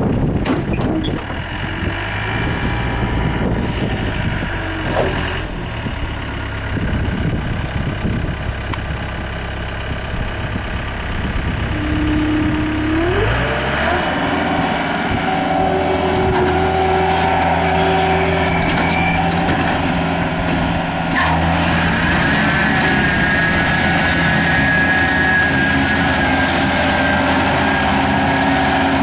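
Skid steer loader engine idling, then revving up about halfway through and holding at high speed. A steady high whine joins several seconds later as the Bobcat 90-inch finish mower attachment runs.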